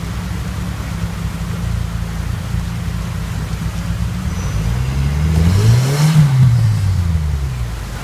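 Rock buggy engine running low and steady, then revved once about five seconds in, its pitch rising and falling back over roughly three seconds as the buggy works up a rock ledge.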